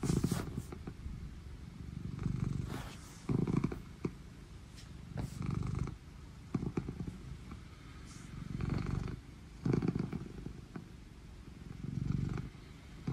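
Ragdoll cat purring loudly while being stroked, the low rumble swelling and fading with each breath about every second or so.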